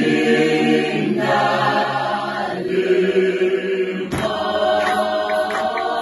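Unaccompanied choir singing in close harmony, holding slow chant-like chords that change about every second and a half. About four seconds in, a steady beat of hand claps starts under the voices.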